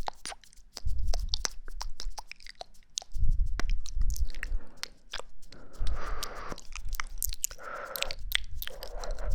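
Close-mic ASMR ear-cleaning sounds: dense crackling clicks and scratching on a microphone's ear, with soft low thumps every two to three seconds.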